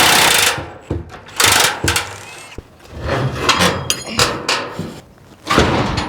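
A power tool running on a bolt stops about half a second in, then metal tools and parts are handled: scattered knocks and clinks, one of them ringing briefly.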